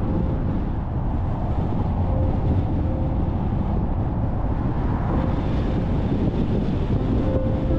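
Car driving at road speed: steady tyre and road noise with wind rushing over the microphone.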